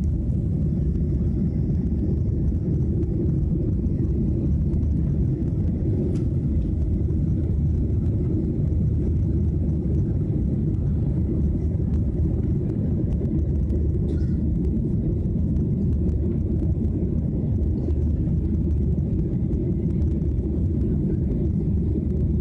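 Steady low rumble of a jet airliner's engines and airflow, heard inside the passenger cabin during the climb after takeoff.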